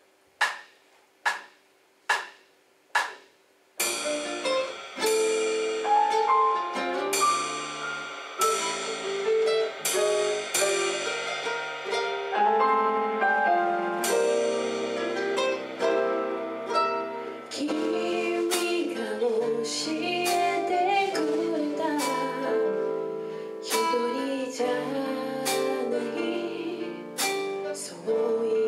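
Four count-in clicks, then a small live band of keyboard piano, electric bass and drums playing a slow song intro; a woman's singing comes in about halfway through.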